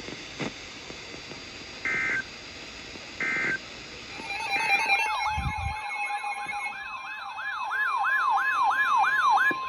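Electronic siren-style alert tone, marking a new tornado warning. Two short beeps come first; then, about four and a half seconds in, a fast rising-and-falling wail starts over a steady tone, at about two and a half cycles a second, growing louder. A brief low thud comes just after the wail starts.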